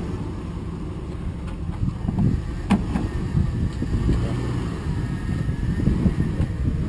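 Rock crawler's engine running at low revs with an uneven low rumble, and one sharp knock about three seconds in.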